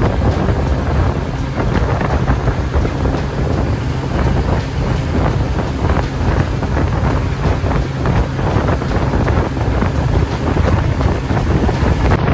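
Wind buffeting the microphone as a 5-metre fibreglass boat with a Yamaha 70 hp tiller outboard runs at speed over the water. The gusty rush of wind and water is loud and covers the outboard's own note.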